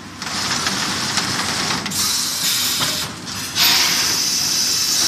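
Vacuum forming machine venting compressed air: a loud hiss that cuts in just after the start, breaks off twice, and returns loudest about three and a half seconds in, over a low steady machine rumble.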